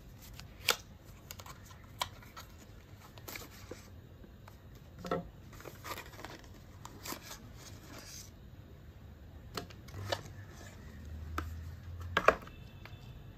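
Paper leaflets, cards and box packaging being handled: scattered rustles, flicks and light taps, with a quick cluster of sharper crinkles near the end.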